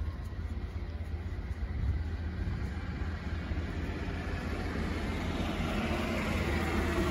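A motor vehicle engine running nearby, a steady low rumble that slowly grows louder over the last few seconds.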